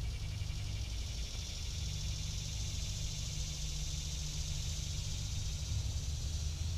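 Wind rumbling steadily on the camera's microphone. Over it runs a steady, high-pitched chorus of insects that is loudest in the middle.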